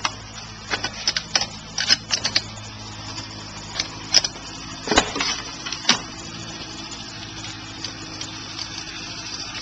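Clicks and knocks of hands and fittings at a chainsaw's spark plug as the rubber plug cap is pulled and the plug taken out. There is a quick run of small clicks at first, then a few louder single knocks about four, five and six seconds in, over a steady low hum.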